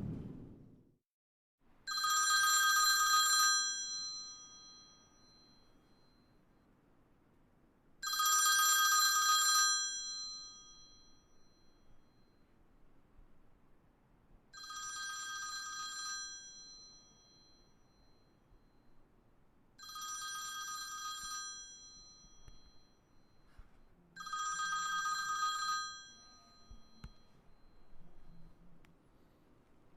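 Telephone ringing: five rings, each about a second and a half long, spaced roughly six seconds apart. The first two rings are louder than the rest.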